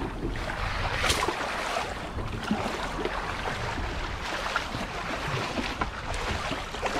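Water sloshing and splashing with scattered brief splashes, over a steady rumble of wind on the microphone.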